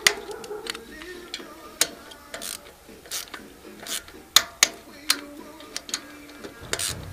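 Hand tools working on metal: sharp, separate clicks and taps at irregular intervals, about one or two a second.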